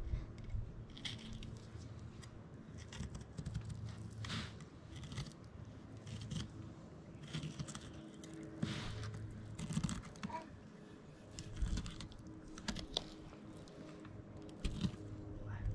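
Knife cutting along a lingcod's backbone and rib bones while filleting, with irregular short crunches and scrapes as the blade works over the bones. A faint steady low hum lies underneath.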